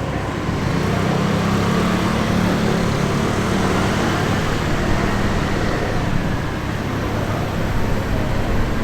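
Road traffic noise: a motor vehicle's engine and tyres running steadily, with no siren clearly heard.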